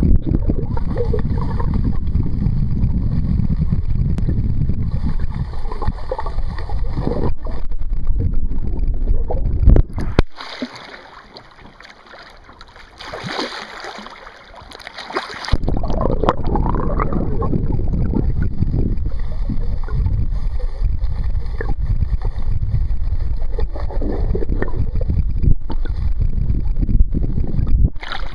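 River water rushing against a camera held in the current, a steady low rumble. About ten seconds in it drops away for several seconds, with a hissing splash as a red sockeye salmon thrashes at the surface, then the rumble returns.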